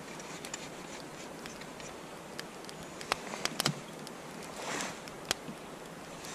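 Handling sounds over a faint steady outdoor hiss: a few light clicks and knocks a little past halfway, then a brief rustle of clothing about three-quarters in, as a wooden cup of coffee is picked up off the snow.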